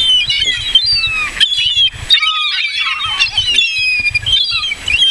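A flock of gulls calling over one another, many overlapping squawking cries with a brief lull about two seconds in.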